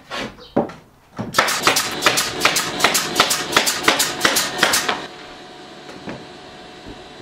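Pneumatic nailer firing in rapid succession, about five sharp shots a second for roughly three and a half seconds, after a few single knocks in the first second.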